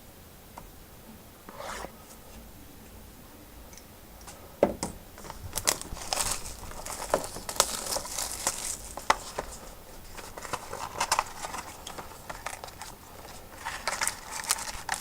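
A sealed box of trading cards being unwrapped and opened: after a few quiet seconds there is a sharp snap, then plastic wrap and packaging crinkling and tearing.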